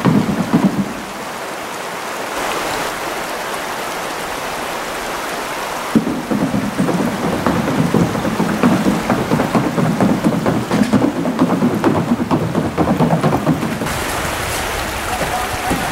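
Wind buffeting the microphone: a loud, rough rumbling rush that evens out about a second in and turns gusty again from about six seconds.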